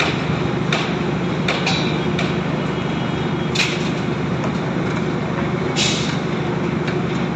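Construction machinery running steadily with a low hum, with a few sharp metallic clanks, the loudest about three and a half seconds in and another near six seconds.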